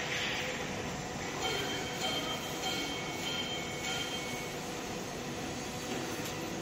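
Steady machinery noise in a factory, with a faint high whine that comes in about a second and a half in and fades about two seconds later.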